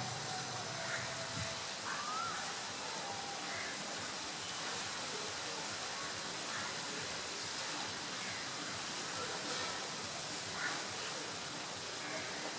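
Steady hiss of rain falling outdoors, with a few short bird calls scattered through it.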